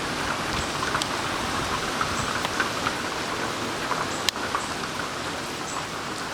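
Heavy hurricane rain falling steadily, with scattered sharp drop ticks and one louder sharp tick about four seconds in.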